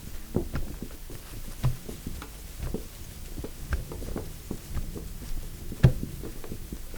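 A run of irregular soft thumps and taps, about two or three a second, with one louder thump near the end: foley sound effects.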